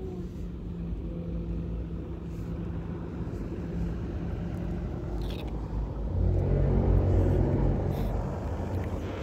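A motor engine running steadily with a low rumble. It grows louder about six seconds in, then eases slightly near the end.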